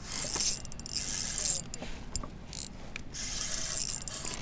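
Fishing reel being cranked in two short spells with a brief pause between, its gears whirring and clicking as line is retrieved to work a drop-shot rig slowly along the bottom.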